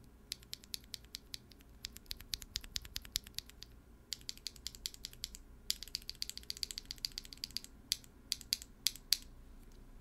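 Holy Panda tactile mechanical key switches pressed in quick runs, rapid sharp clacks in several bursts with short pauses between them. The clicks thin out near the end.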